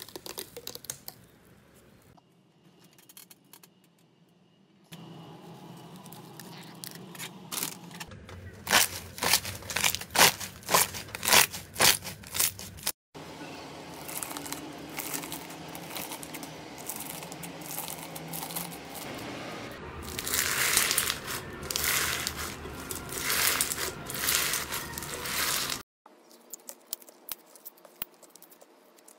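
Crunchy slime being pressed and cut: dense crackling and popping clicks, loudest in a run of sharp strokes partway through. After a sudden cut a second stretch of crackling follows, then another sudden cut to a few quieter clicks.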